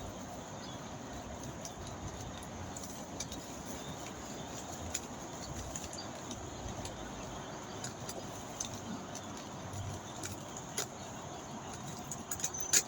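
Steady background hiss with scattered small clicks and ticks, and a sharper click near the end.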